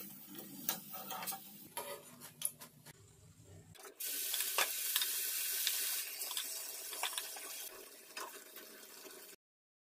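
Mushroom and cabbage batter deep-frying in hot oil in a steel kadai. At first a wire spider strainer clinks and scrapes against the pan. About four seconds in, fresh batter hits the oil and a loud sizzle starts; it carries on with a few clinks and cuts off suddenly near the end.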